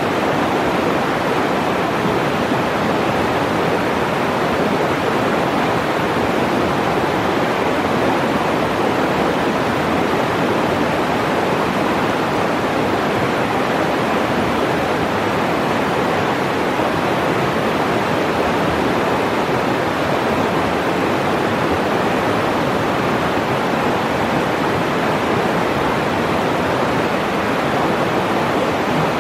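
Fast, shallow mountain river rushing over a bed of rocks and boulders, a steady, even rush of water.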